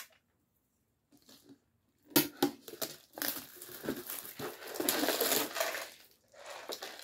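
Clear plastic shrink-wrap being torn and crinkled off a cup-noodle bowl: a few sharp crackles about two seconds in, then steady crinkling.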